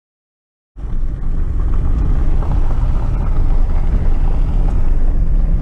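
Loud, low rumbling noise with wind buffeting the microphone, typical of a moving vehicle. It starts abruptly under a second in.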